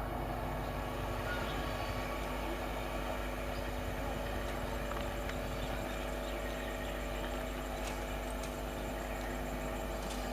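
Steady electrical hum of an Indian Railways electric multiple unit (EMU) train, several steady tones over an even hiss.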